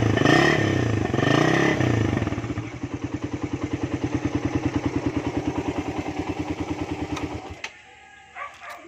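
Engine exhaust with the catalytic converter removed, revved in quick blips for about two seconds, then settling to an idle with an even pulsing beat. The engine is switched off about seven and a half seconds in, and a few small clicks follow.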